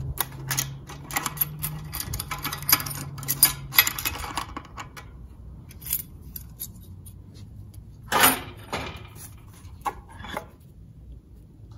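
Light metallic clicks and scrapes as a small pocket screwdriver works a snap ring out of its groove in a Chrysler A-904 automatic transmission's servo bore. Then the freed servo parts clink as they are lifted out, the louder clatters coming about eight seconds in.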